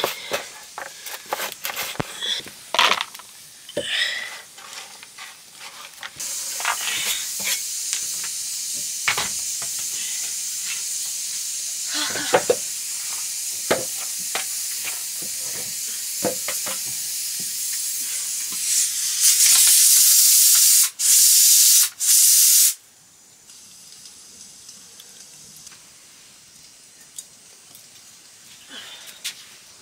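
Hissing from food cooking in a pot, with utensil clicks and knocks. The hiss starts about six seconds in and holds steady. A few seconds before the end it turns much louder and cuts out sharply twice. Then it drops away to a quieter background with faint clicks.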